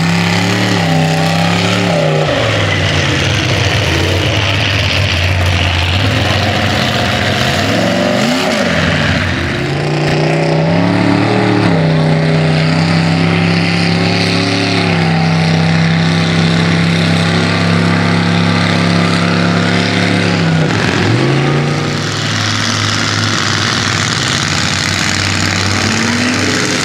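Mud-truck engines revving hard while plowing through a mud pit, the pitch rising and falling with the throttle and held high for a long stretch in the middle, with a wash of mud and water being churned up.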